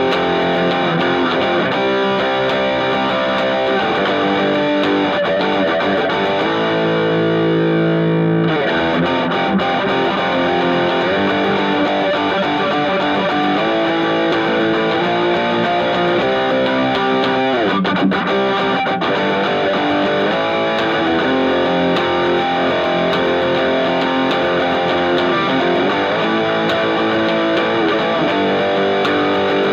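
Fernandes TEJ Telecaster-style electric guitar played through an amplifier, strummed chords and picked notes without a break. About eight seconds in a chord is held and then cut off sharply.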